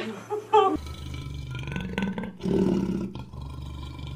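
Lion roaring: a deep, rumbling call that starts just under a second in and swells loudest a little past halfway.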